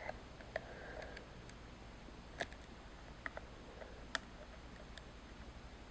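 Faint, scattered small clicks and ticks, about five in all, of a plastic spudger prying at a tightly glued ribbon cable inside a laptop.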